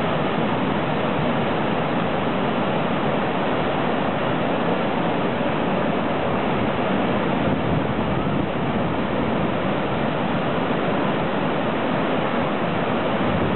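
Surf breaking on a beach, a continuous steady rushing noise of waves.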